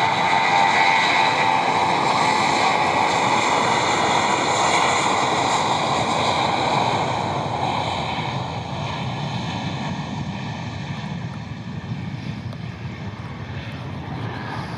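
Jet airliner's engines at takeoff power, a loud roar with a high fan whine, fading steadily over the second half as the aircraft departs and climbs away.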